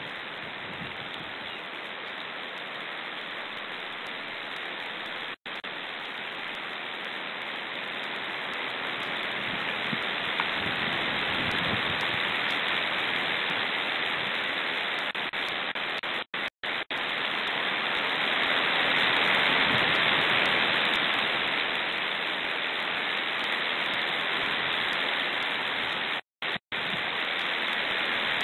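Strong wind hiss overloading the nest camera's microphone: a steady rushing noise that swells louder in the middle. The sound cuts out for a split second a few times.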